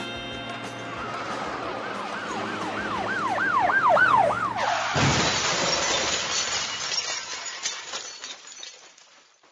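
A siren-like wail that swoops up and down ever faster over fading music, then a sudden crash like smashing glass about halfway through that dies away over about four seconds.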